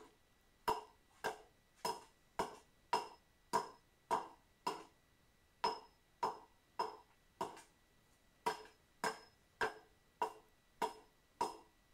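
Small vintage hewing hatchet with an unsharpened edge chopping again and again into a wooden plank, about two blows a second with two short pauses. Each blow is a sharp knock with a brief ring. The edge is dull and is not expected to do much to the wood.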